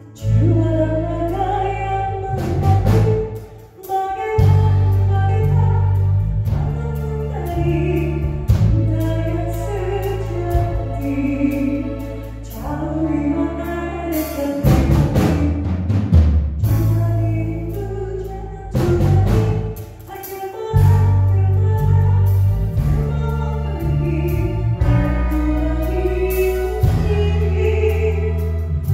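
A man singing live into a microphone with a band of electric guitar, bass guitar and drums behind him, through a PA. He holds long notes with vibrato over heavy, sustained bass, with drum fills now and then.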